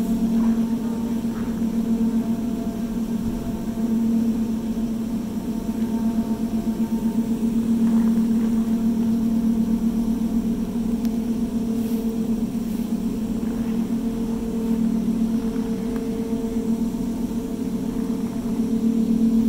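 Jay Peak aerial tram's haul rope running around the bullwheels at speed: a steady, low-pitched hum with a quick, even throb in its loudness.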